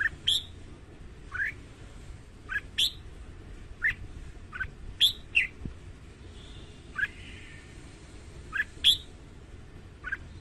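Red-whiskered bulbul singing short, sharp chirped notes that sweep quickly in pitch. They come one or two at a time, roughly every second.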